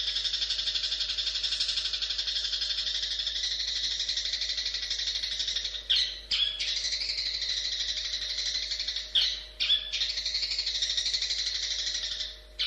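Long-tailed shrike (cendet) singing a long, rapid, continuous chattering song. It breaks off briefly with a sharp louder note about six seconds in and twice more between nine and ten seconds.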